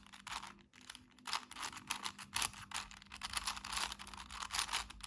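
4x4 Rubik's cube being turned quickly by hand: rapid, irregular clicking and clacking of its plastic layers.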